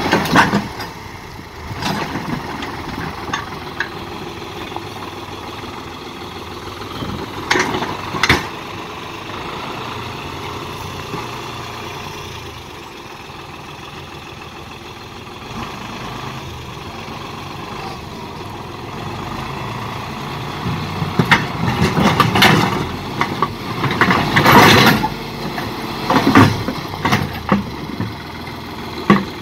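New Holland farm tractor's diesel engine running under load as its bucket pushes and scrapes through rocks, with stones knocking and grinding against the steel bucket. The clatter comes in bursts, briefly about a quarter of the way in, and loudest and most frequent in the last third.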